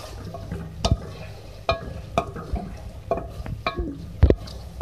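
Wooden spatula stirring beef, tomatoes and whole spices frying in oil in a metal pot: repeated scrapes and knocks against the pot, about two a second, the loudest near the end, over a low sizzle.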